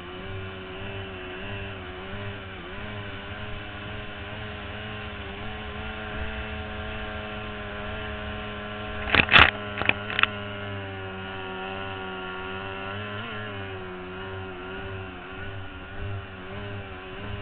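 Two-stroke racing outboard engine of a C-stock runabout racing boat running steadily at speed, its pitch holding nearly constant. About nine to ten seconds in, a few loud sharp knocks break through.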